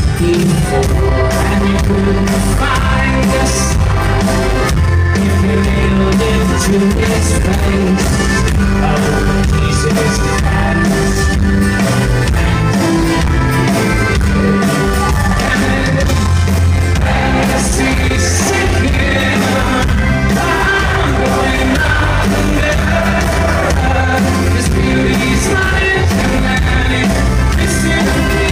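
Folk-rock band playing live: drums keeping a steady beat under acoustic guitar and accordion, with a lead part at the centre microphone.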